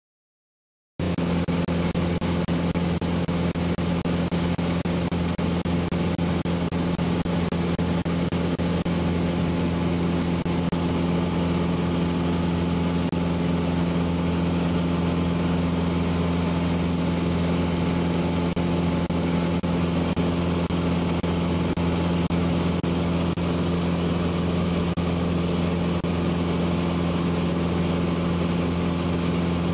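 A 1957 Cessna 182's Continental O-470 flat-six engine and propeller droning steadily in flight, heard from on board. The drone cuts in abruptly about a second in.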